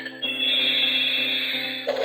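Electronic sound effect from a battery-powered toy's sound chip: a buzzing, steady electronic tone that starts just after a short pause and cuts off abruptly near the end.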